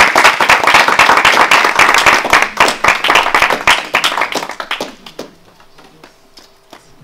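A small audience applauding, many hands clapping densely, then dying away about five seconds in.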